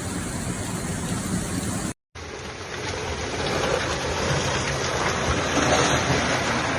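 Steady rushing noise of floodwater and heavy rain. It cuts out for a moment about two seconds in, then resumes and slowly grows louder.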